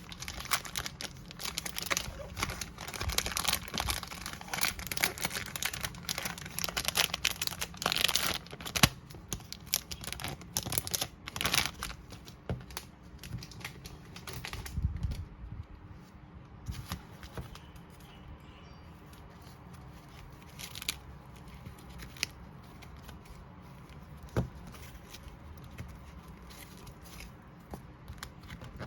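Album packaging being torn open and crinkled by hand. The crackling is dense for about the first twelve seconds, then thins to scattered rustles and clicks.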